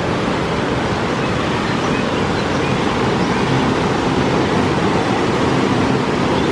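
River rapids rushing steadily over rocks, a loud even wash of white water.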